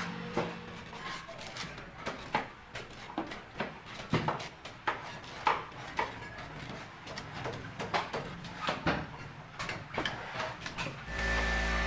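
Knife chopping and shaving the husk of a young coconut on a wooden block: a run of irregular sharp cuts and knocks, about one or two a second. Near the end a steady machine whir with a low hum starts.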